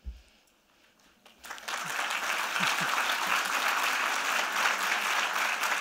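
A short hush, then an audience breaks into applause about a second and a half in and keeps clapping steadily.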